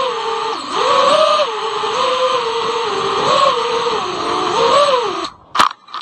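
FPV quadcopter's electric motors and propellers whining, the pitch rising and falling with the throttle over a steady rushing noise. About five seconds in the motors cut out suddenly, and two short sharp knocks follow.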